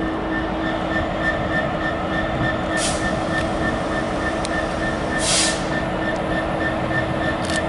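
GBRf Class 66 diesel locomotive's two-stroke V12 engine running steadily as it hauls a container freight train slowly through the station. Two short hisses of air come about three and five seconds in.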